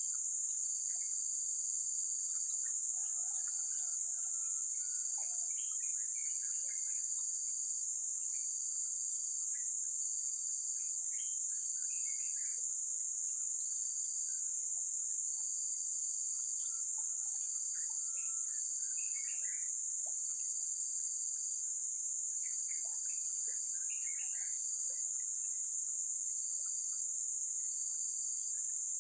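Steady high-pitched drone of forest insects, with a second insect's pulsed high trill repeating in bursts about a second long. Short bird chirps come and go throughout.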